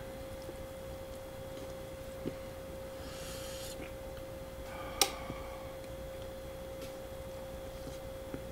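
Chopsticks working instant noodles in a Cup Noodle cup: a few light clicks, the loudest about five seconds in, and a short breathy hiss around three seconds in, over a steady faint high hum.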